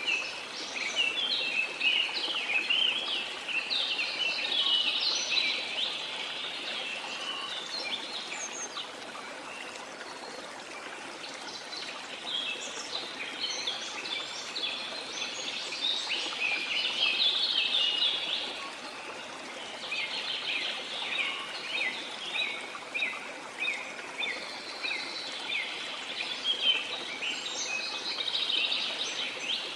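Songbirds chirping and trilling in quick bunches over the steady rush of a flowing stream, a nature ambience track. The chirping thins out for a few seconds about a third of the way through, then picks up again.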